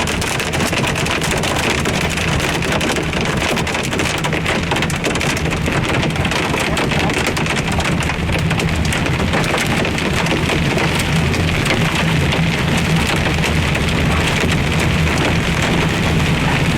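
Hail and heavy rain drumming steadily on the roof and glass of a car, heard from inside the cabin as a dense, unbroken patter of countless small impacts, with a low steady hum from the car beneath it.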